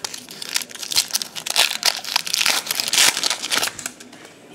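Foil wrapper of a baseball card pack crinkling and tearing as it is ripped open by hand, a dense crackle that stops about four seconds in.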